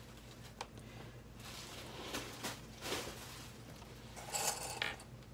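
Soft rustling of fabric pieces being handled and adjusted by hand, with a light click about half a second in and a louder rustle a little past four seconds. A faint steady hum underneath.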